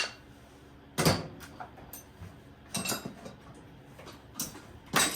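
Irregular metal clanks and knocks of hand tools against engine parts: a sharp click at the start, the loudest clank about a second in, then more every second or two.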